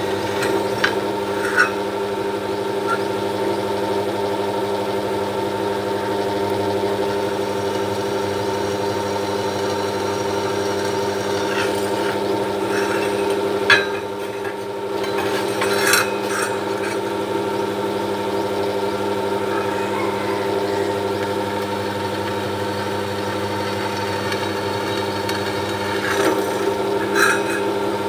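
Bench drill press motor running steadily as a small bit is fed slowly into an aluminium heatsink, with a few short knocks, the loudest about halfway through, as the block is turned over and set back on the table.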